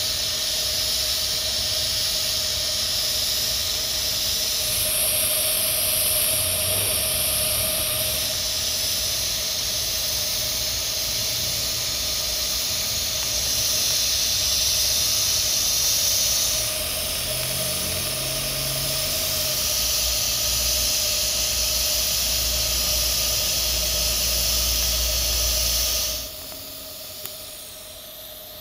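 TIG welding arc running steadily during a fill pass on carbon steel pipe: a steady hiss with a constant hum. It shifts abruptly a few times and cuts off about two seconds before the end.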